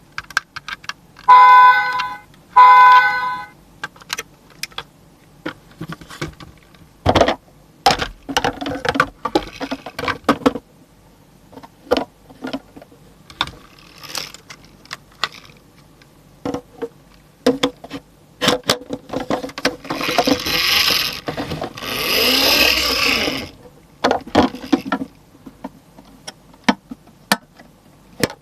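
Diecast toy trucks being handled, with scattered clicks, taps and plastic rattles. Near the start there are two short electronic tones from a toy's sound feature, and a few seconds of scraping or rustling come about twenty seconds in.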